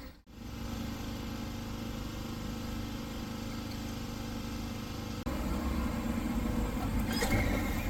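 Street ambience with a vehicle engine running steadily. The sound drops out and changes abruptly about five seconds in.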